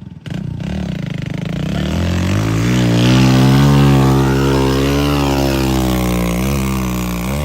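A heavy vehicle's diesel engine revving hard under load as it climbs. The pitch rises about two seconds in, holds high through the middle, eases a little, then the engine sound cuts off suddenly at the end.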